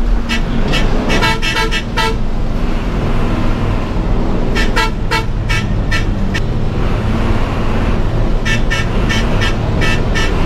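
Bus horn tapped in three quick bursts of short toots, several a second, over the steady drone of the bus's engine. Heard from inside the driver's cab as the bus bears down on the vehicles ahead to overtake, the honks warning them to make way.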